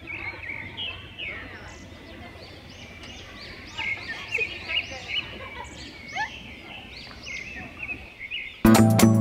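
Birds calling, many short repeated chirps and whistles overlapping, over a steady low background hum. Near the end, music with plucked strings and a beat cuts in suddenly.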